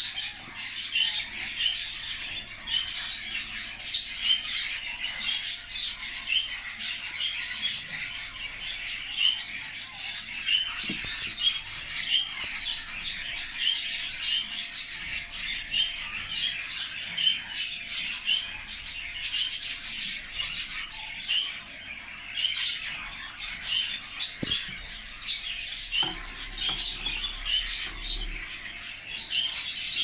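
Budgerigars chattering: a dense, unbroken run of short, overlapping chirps.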